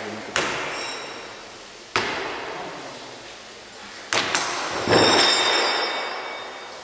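Throwing knives striking wooden target boards: about five sharp knocks, two close together a little after four seconds and the loudest about five seconds in. Each one rings out in the hall's echo, with a faint high metallic ring after the later strikes.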